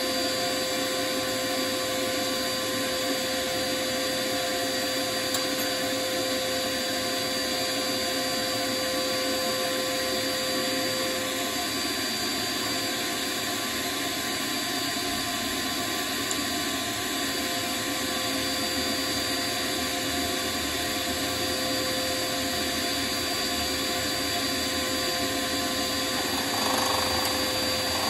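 Wood lathe running steadily as a bowl is turned: a constant motor whine over an even rush of cutting noise from the tool on the spinning wood.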